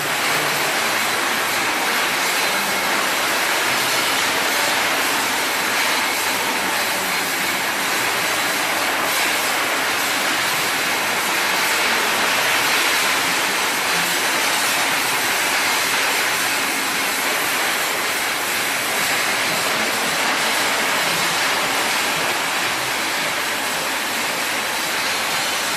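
A PVC wire-coating extruder line running: a steady, even rushing machine noise with most of its energy high up and no clear pitch, holding at one level throughout.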